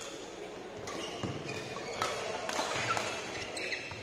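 Badminton rally in a sports hall: rackets strike the shuttlecock several times, with shoes squeaking on the court mat between the hits.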